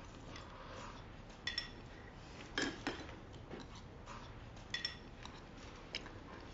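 Chopsticks clinking against porcelain bowls during a meal: a few separate, sharp, briefly ringing clinks, the loudest about two and a half seconds in.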